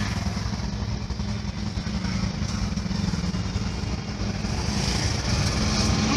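A motor engine running steadily, growing louder toward the end.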